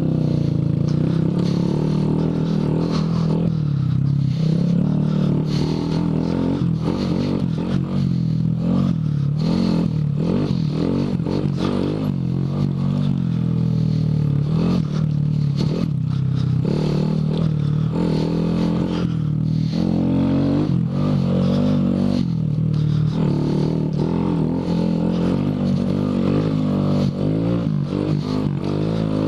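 Honda Grom's 125 cc single-cylinder four-stroke engine running as the bike is ridden, its pitch shifting with the throttle, with frequent knocks and scraping from the rough dirt trail.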